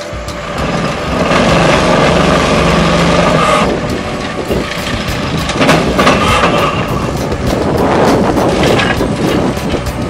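Excavator-mounted Xcentric Ripper XR40, a hydraulic eccentric ripper, hammering into reinforced concrete with a rapid, continuous stream of impacts. The excavator's diesel engine runs under load beneath it.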